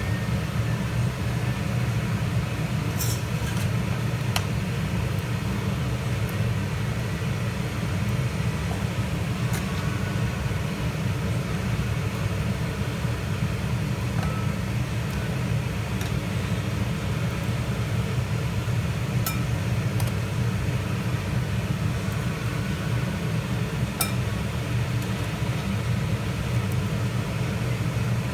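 A steady, unchanging low rumble, with a few faint light clicks scattered through it.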